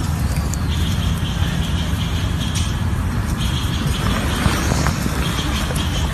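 Steady outdoor background noise: a low rumble with hiss throughout, and a faint high thin tone that comes and goes.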